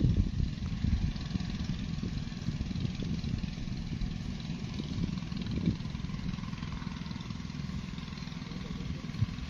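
Agricultural spraying drone's rotors droning steadily in flight, with a heavy low rumble.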